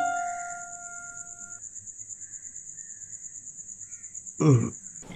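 Crickets chirping in a steady, pulsing high-pitched trill at night, with the last piano notes of the background music fading out in the first second or so. A short vocal sound cuts in near the end.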